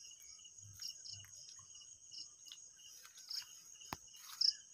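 Steady chorus of crickets and other insects, a thin high continuous trill, with a short higher chirp about once a second. A single sharp click sounds near the end.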